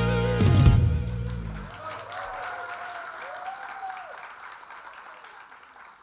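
A live rock band with guitars finishes a song: a held final chord drops away in pitch and stops about a second in. The audience then applauds, with a few shouts, and the applause fades out.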